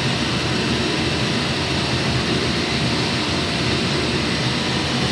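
Welding electrode manufacturing machinery running: a steady, dense mechanical noise with a faint steady hum in it.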